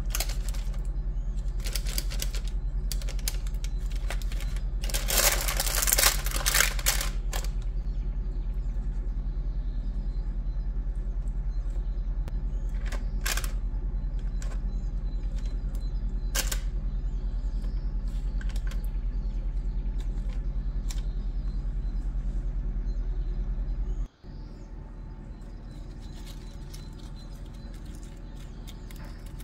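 Steady low hum with intermittent crackling and rustling as fingers press into oiled dough in a parchment-lined baking pan, the paper crinkling. The crackles come thickest about five to seven seconds in. The hum drops to a quieter level about 24 seconds in.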